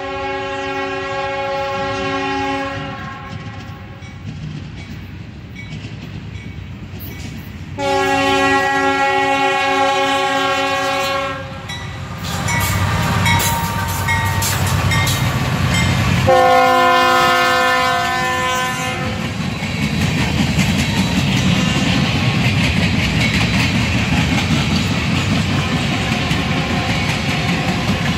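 Freight train passing close by: the lead Union Pacific diesel locomotive's air horn sounds three long blasts, the first ending about two and a half seconds in, the next about eight seconds in, the last about sixteen seconds in, over the locomotives' engine rumble. From about nineteen seconds on comes the steady rumble and clickety-clack of covered hopper cars rolling past.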